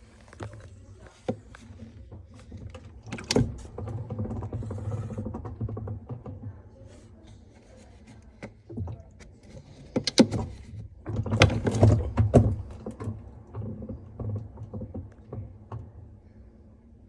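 An appliance's rotating unit turned by hand, making a low rumble with sharp clapping knocks: an abnormal clapping noise from the unit. It comes in two spells of spinning, the second with the loudest knocks.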